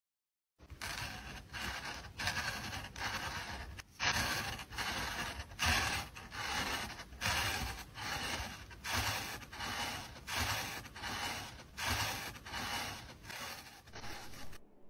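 Rhythmic scraping or rubbing strokes, about three every two seconds, each with a soft low thump.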